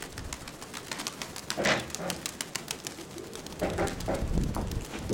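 Nikolaev pigeons cooing in short calls, with strong gusty wind buffeting the microphone throughout.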